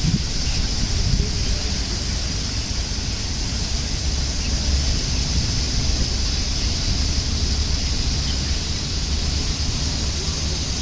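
Steady hiss of water spraying and splashing from a fountain, over a low, uneven rumble.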